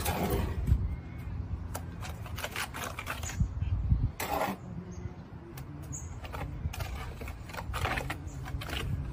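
Trowel scraping and knocking in a wheelbarrow as mortar is scooped out and spread, heard as a run of irregular clicks and short scrapes over a steady low rumble.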